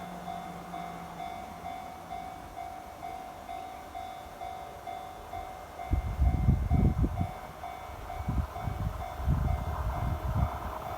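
Japanese railway level-crossing alarm ringing, a steady run of evenly repeated electronic dings. About six seconds in, an irregular low rumbling starts under the alarm and is the loudest sound from then on.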